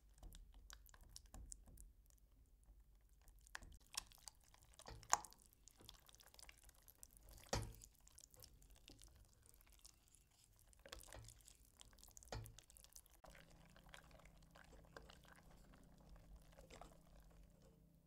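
Wire whisk stirring thick pastry cream in a stainless steel saucepan: faint wet stirring with scattered ticks of the wires against the pot, and a couple of sharper clinks in the first half.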